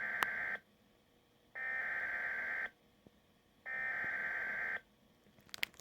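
Weather radio SAME header: digital data tones sent in identical bursts about a second long, with the tail of one burst followed by two more, the coded alert header that opens an emergency alert message, here a severe thunderstorm warning. A few crackles of static near the end.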